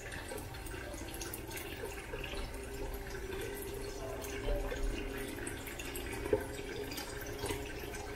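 Kitchen tap running a steady thin stream of water into a plastic bowl in a stainless steel sink, with a few small drips and clicks.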